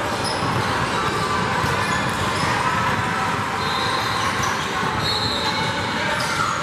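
Basketball game din in a large, echoing gym: a steady mix of crowd chatter from the surrounding courts, basketball bounces on the hardwood floor, and a few short high sneaker squeaks about halfway through and near the end.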